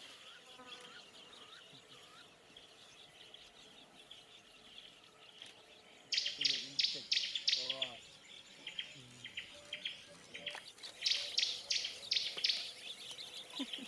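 A bird calling in rapid series of sharp, repeated high notes, in two bursts about halfway through and near the end, over a steady high drone of insects.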